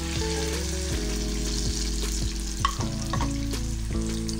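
Besan-coated fish pieces deep-frying in hot oil in a wok, the oil sizzling steadily.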